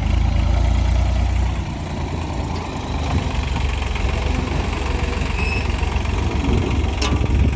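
New Holland 3600-2 tractor's three-cylinder diesel engine running with its tipping trolley raised to dump soil. A heavy low rumble, strongest for the first second and a half and then steady, with a short click near the end.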